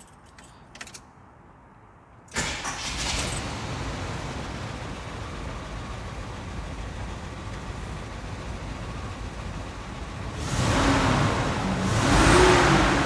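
Ignition key clicks, then the 1977 Jeep J10's carbureted V8 starts about two seconds in and settles into a steady idle. Near the end it is revved twice, the engine note rising and falling each time.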